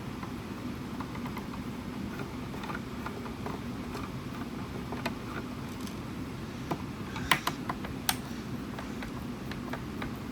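Small clicks and taps of a screwdriver working on a plastic speaker cabinet during disassembly, with a brief cluster of sharper clicks about three-quarters of the way through, over a steady low background hum.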